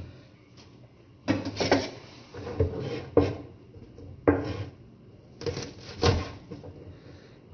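A kitchen knife chopping on a plastic cutting board while green chilies are sliced: about seven sharp, irregular knocks.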